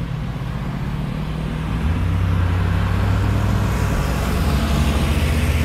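Car engine and road noise heard from inside the moving car's cabin: a steady low hum with tyre and wind hiss. It grows louder about two seconds in.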